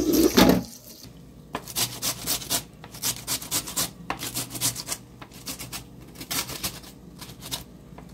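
Tap water running briefly over a green bell pepper, then the pepper being grated on a stainless steel hand grater: repeated rasping strokes, two or three a second, as its inner flesh is shredded off the skin.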